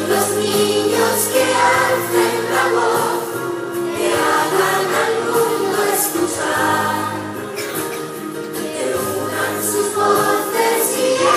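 A children's choir singing a Spanish-language song in unison.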